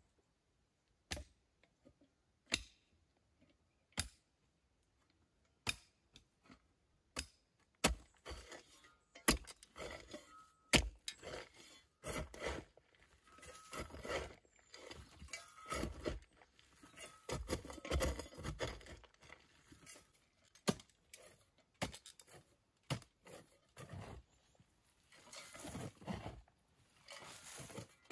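A small folding shovel digging into dry, crumbly soil: repeated scraping and crunching strokes as the blade cuts in and dirt is lifted. The strokes start about eight seconds in, after a few single sharp knocks.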